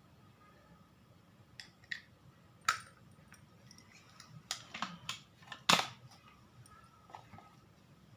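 Small objects handled by hand: a scattered series of sharp clicks and knocks, the loudest a little before six seconds in, over a faint steady background.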